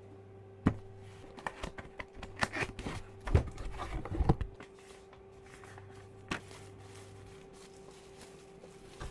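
Keys of a Royal Kludge R65 mechanical keyboard being pressed, in separate sharp clacks: one, then an irregular run of keystrokes between about one and a half and four and a half seconds in, then one more near six seconds. A faint steady hum sits under them.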